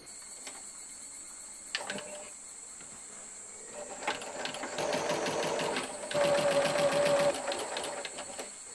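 Janome 780DX straight-stitch sewing machine stitching a seam: rapid, even needle strokes in two runs from about four seconds in, the second louder and faster, stopping near the end. A single click comes a little before two seconds.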